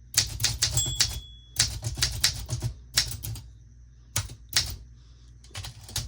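Vintage manual typewriter being typed on: runs of rapid key strikes separated by short pauses, quieter for a stretch near the middle. A brief high ring sounds about a second in.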